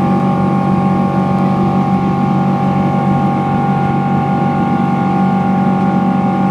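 Cabin noise of a Boeing 777-200ER climbing after takeoff: a steady, loud rush of its Rolls-Royce Trent 892 engines and airflow, with several steady humming tones on top.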